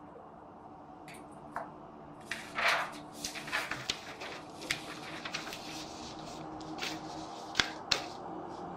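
Paper and small objects being handled and gathered from a table: rustling, with a longer rustle about two and a half seconds in, and a string of small clicks and taps, the two sharpest close together near the end.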